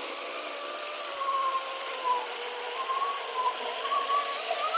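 Battery-powered 40-volt electric chainsaw with a 14-inch bar running and cutting wood: a steady motor whine that wavers slightly in pitch, over the hiss of the chain.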